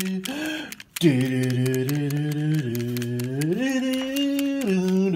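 A single voice singing or chanting a slow tune in long held notes that step up and down, with a brief break for breath just before a second in.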